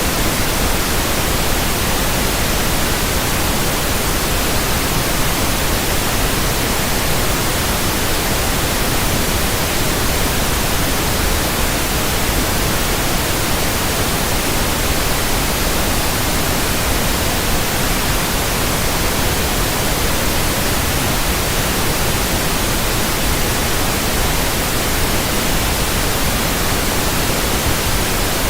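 Steady, loud static hiss: an even, unbroken noise across all pitches, like a TV or radio tuned to no station.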